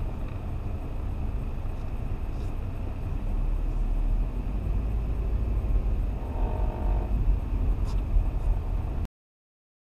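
Steady low rumble of a car's engine and road noise heard from inside the cabin, with a short pitched sound about six seconds in; the sound cuts off abruptly near the end.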